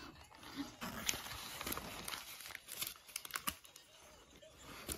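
Close-up chewing of a dense whole-wheat bagel with pumpkin filling and egg: a run of irregular small crackles and mouth clicks.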